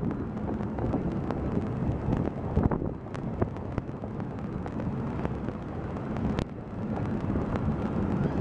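Wind buffeting the microphone over the steady drone of a moving tuk-tuk's engine, with a few sharp knocks and rattles.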